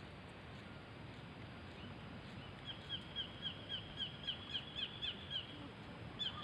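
A bird calling: a rapid run of short, high, downward-slurred notes, about four a second, beginning a couple of seconds in and breaking off shortly before a fresh burst at the very end, over a steady low outdoor rumble.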